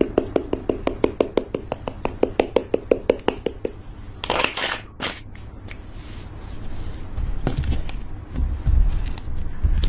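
Fingertip tapping quickly on a small plastic jar of blue powder pigment to shake the powder out onto clear slime, about eight taps a second for the first three and a half seconds. A short rustle follows, and from about seven seconds there are soft low squishes as the slime is folded over.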